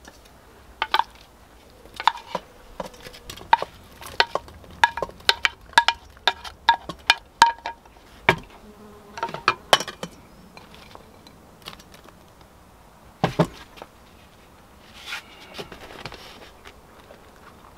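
Wooden spoon knocking and scraping against an enamel pot while vegetables are tipped into a stainless steel pot: a quick run of clacks with a short ringing note, then a few scattered clunks as sliced bitter gourd is dropped in, one louder knock about two-thirds through.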